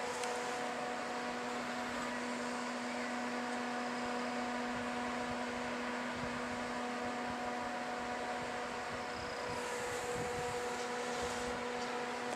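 Siemens Desiro electric multiple unit (Slovenian Railways class 312) standing at a platform, its onboard equipment giving off a steady electrical hum: one low held tone with fainter higher tones above it.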